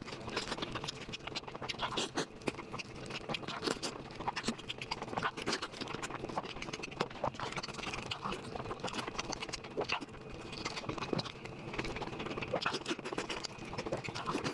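Close-miked eating sounds: wet chewing with a steady stream of small crunchy clicks and smacks.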